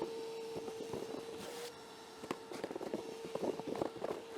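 A vacuum's motor running with a steady hum while bits of debris click and rattle through it, most thickly in the last second and a half.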